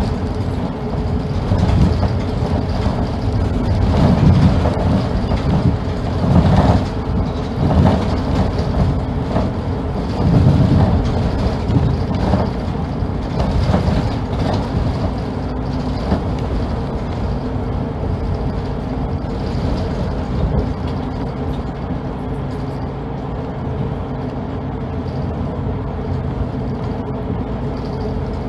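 Kanto Railway city bus heard from inside the passenger cabin as it drives: engine and road rumble with a steady hum. There are several louder thumps and surges in the first half, and the noise settles steadier and a little quieter in the second half.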